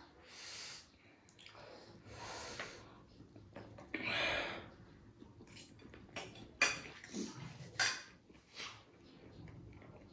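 Three sharp hissing breaths, air drawn through the mouth against the chilli burn of very spicy food, followed in the second half by several clinks of cutlery against a plate.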